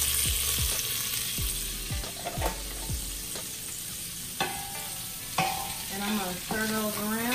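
Potatoes sizzling in hot duck fat in a stainless steel pot, stirred with a wooden spoon that knocks against the pot a few times. A wavering pitched sound comes in about two seconds before the end.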